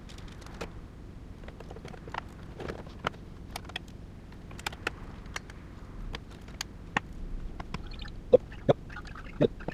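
Irregular light clicks, taps and knocks of computer parts being handled and fitted into a desktop PC case during assembly, a few of them ringing briefly near the end.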